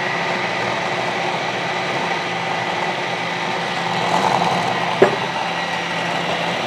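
Electric food processor motor running steadily with a high whine, chopping a chunky mix of feta cheese, garlic, jalapeño and fresh herbs. A single sharp knock about five seconds in.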